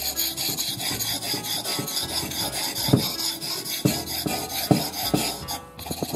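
Seki Magoroku deba knife blade stroked rapidly back and forth on a wet whetstone, a rhythmic rasping scrape, with a few soft knocks a little past halfway and a brief pause near the end. This is the final resharpening of the blade, here on its back face, after its rust has been removed.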